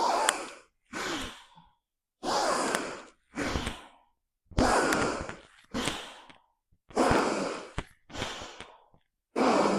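A woman breathing audibly in paced yoga breaths, inhaling and exhaling in time with lifting and lowering the hips in bridge pose. There are four breath cycles, each a longer, louder breath followed by a shorter, softer one, about every two and a half seconds.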